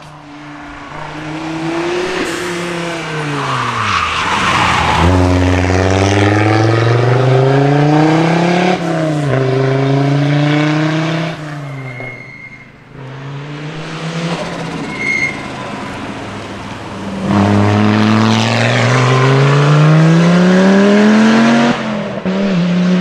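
Audi Quattro rally cars' turbocharged five-cylinder engines, loud, revving down under braking and then climbing hard through the gears with a short dip at each gear change. There are two long acceleration runs, one after another.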